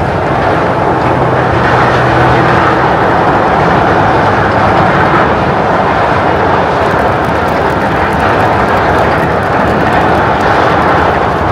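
A 19,900 DWT chemical tanker sliding down the launch ways into the sea: a loud, steady roar without clear pitch.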